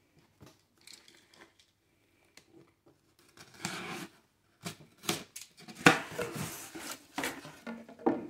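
Box cutter slicing through the packing tape on a cardboard shipping box in short scraping strokes, then a sharp snap as the box is opened and a rustle of paper.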